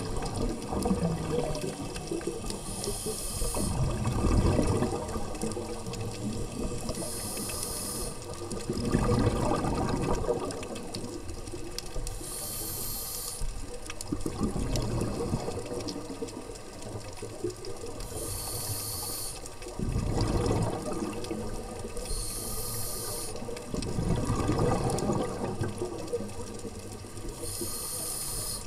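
Scuba breathing through a regulator underwater: a short hiss on each inhale, then a longer rushing burble of exhaled bubbles. It repeats six times, about every five seconds.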